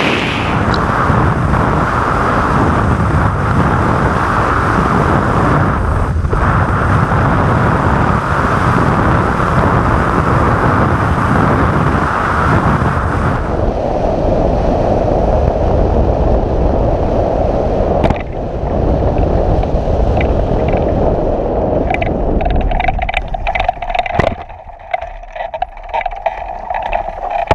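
Wind rushing over the microphone of a hang glider's keel-mounted camera in a fast final glide. The rush eases and lowers about 13 seconds in as the glider slows over the landing field. Near the end it breaks into uneven buffeting and crackles, with a sharp knock a little after 24 seconds as the glider comes down on the grass after a weak flare.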